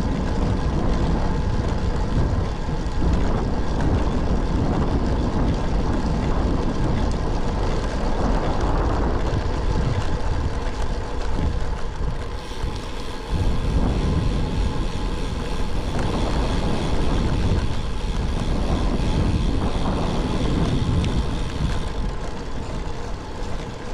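Wind buffeting the action camera's microphone while riding a road bicycle: a steady low rumble with a dip about twelve seconds in.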